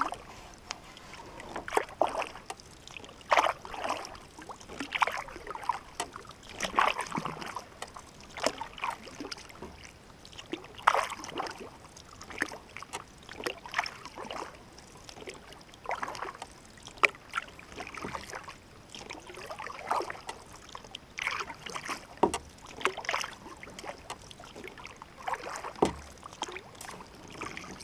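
Canoe paddle strokes: the blade splashing and pulling through calm lake water every second or two, with drips in between.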